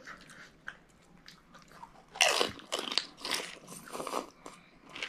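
Biting and crunching through a crisp pani puri shell, with chewing; the crunches come loudest in a run from about two seconds in.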